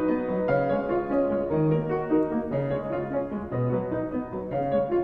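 Background piano music: calm notes and chords changing about once a second.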